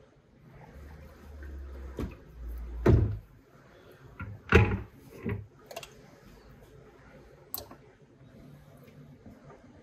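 Cast-iron parts of an old flat iron being set down into a plastic tub of water: a few separate dull knocks, the two loudest about three and four and a half seconds in, with a low rumble of handling just before them.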